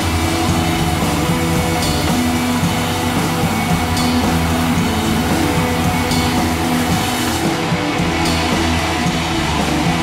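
Background rock music with guitar and drums.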